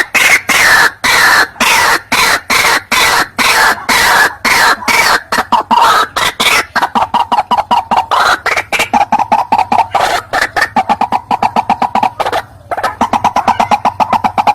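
White-breasted waterhen (ruak-ruak) calling loudly as a hunter's lure recording: a rapid run of short repeated call notes, several a second and quickening, with a brief break near the end.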